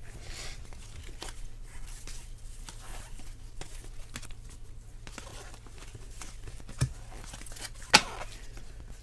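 Trading cards sliding and flicking against each other as a stack is thumbed through by gloved hands: soft scraping with many small clicks, and two sharper snaps in the second half, over a steady low hum.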